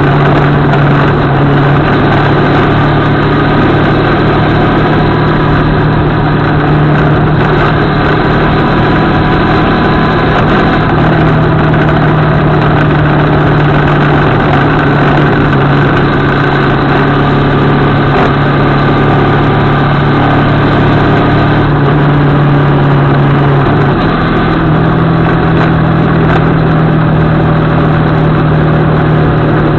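CFMoto 650MT motorcycle's parallel-twin engine running steadily while cruising, heard from a camera mounted on the bike, with a constant rush of wind and road noise. Its pitch steps slightly up and down a few times as the throttle changes.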